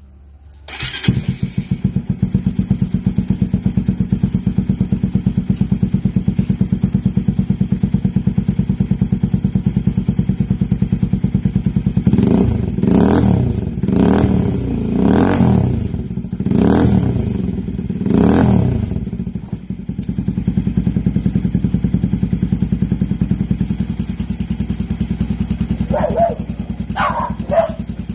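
Motorcycle engine with an aftermarket Yoshimura exhaust muffler starting up about a second in and settling into a steady, pulsing idle. About halfway through it is revved in a series of five or six quick blips, each rising and falling back, then returns to idle.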